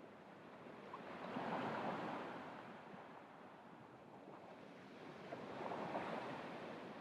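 Gentle surf on the beach: small waves wash in twice, about four seconds apart, the first about one and a half seconds in and the second near the end.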